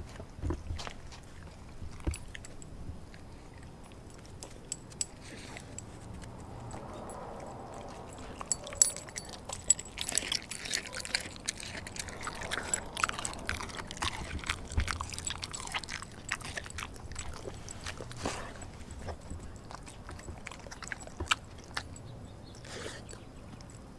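Large shepherd-type dog chewing raw meat close to the microphone. The wet chewing carries many sharp bite clicks, busiest from about ten to eighteen seconds in.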